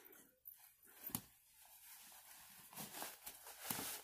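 Faint rustling and a light knock about a second in, from a leather cowboy boot being handled.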